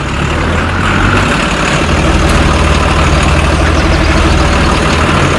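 A truck engine idling steadily, with a low, even hum.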